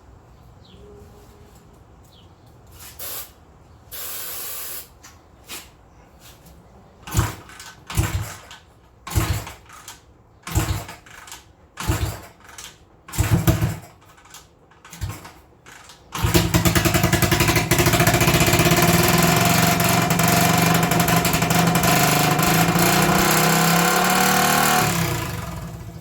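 A series of attempts to start the 1980 Honda XL250S's single-cylinder four-stroke engine on starter fluid, one about every second. About 16 s in it fires and runs loud and fast, its pitch climbing as it runs away, until it is cut off shortly before the end.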